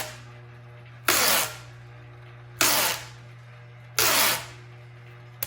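Masking tape pulled off the roll in short rasping pulls, about every second and a half, as it is wrapped around glass in a lathe chuck to help the jaws grip, over a steady low hum.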